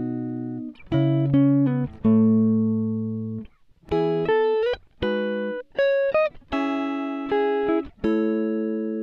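Background music: plucked-string chords, each struck sharply and left to ring and fade before the next, about one a second.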